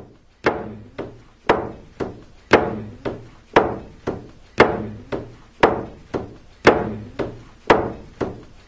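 A drum beaten in a steady rhythm of about two strikes a second, alternating a loud stroke with a softer one, each with a low, ringing body.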